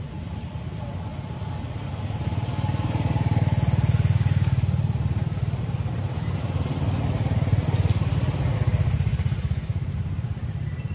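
Low engine rumble of passing motor vehicles, swelling to a peak about four seconds in and again about eight seconds in.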